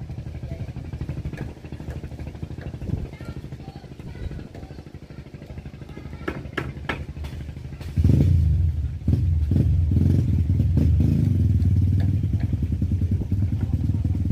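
An engine running with a low, even throb that grows louder about eight seconds in, with a few sharp clicks or knocks shortly before.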